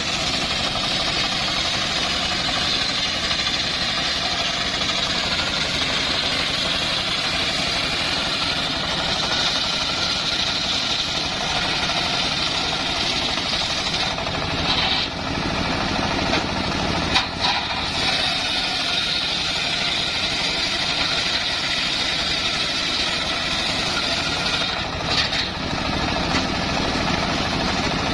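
Homemade circular sawmill running steadily, its large blade ripping a sengon log lengthwise into boards. The cutting noise eases briefly about halfway through, while the log is pushed back into position, and again near the end.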